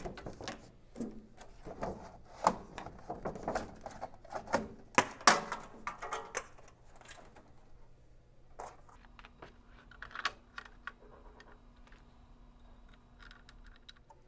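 Hands fitting a printer and its metal mounting bracket into a steel instrument panel: irregular clicks, taps and knocks of hard parts, busiest in the first half and sparser after.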